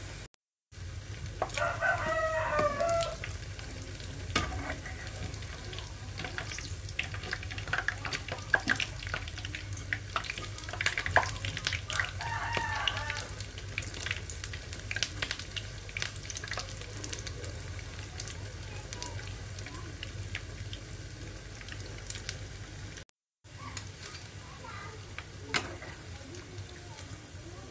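Corn fritters deep-frying in a wok of hot oil: a steady sizzle full of crackles and pops. A rooster crows twice in the background, about two seconds in and again around the middle, and the sound cuts out for a moment twice.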